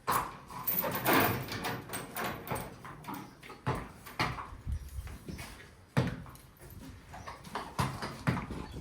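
Horse's hooves knocking and scuffing at an irregular pace, with scraping sounds between the knocks.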